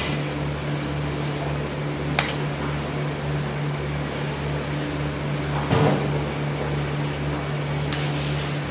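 Steady machine hum with a low throb pulsing roughly twice a second, with a few faint knocks and scrapes of a metal ladle working through a large aluminium tray of rice.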